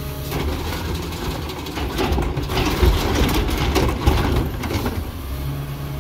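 Rear-loader garbage truck's engine revving up to power the hydraulics as the cart tipper lifts and dumps carts into the hopper, with clanking and rattling in the middle; the engine drops back to a steady idle near the end.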